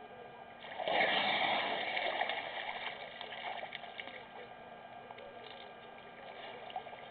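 Water splashing and gushing as an African elephant bull drinks, swelling about a second in and fading out over the next few seconds.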